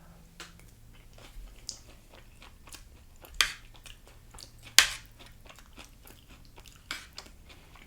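Close-miked chewing of a crunchy tostada shell: a run of small crackles and crunches, with two louder crunches near the middle.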